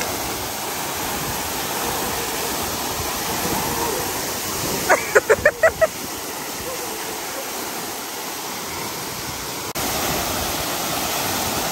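Waterfall pouring into a plunge pool: a steady rush of falling water. About five seconds in, a person's voice calls out briefly in a few quick syllables.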